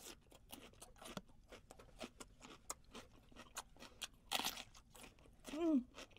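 Close-miked mouth sounds of chewing, with many small wet clicks, and a crunchy bite into a raw cucumber about four seconds in. A short hummed voice sound follows near the end.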